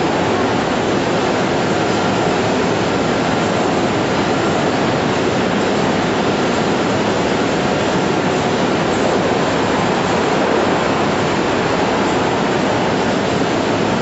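Poultry slaughter-line machinery running with a steady, even noise, without breaks or a clear beat.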